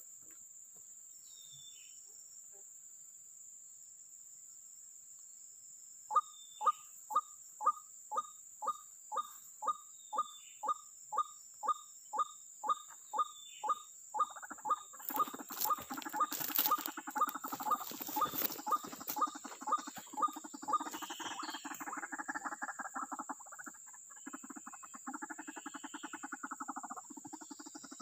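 White-breasted waterhen (ruak-ruak) calling. From about six seconds in there is a run of evenly repeated single notes, about two a second. About halfway through it swells into a loud, dense, chattering chorus of grunting calls that goes on to the end.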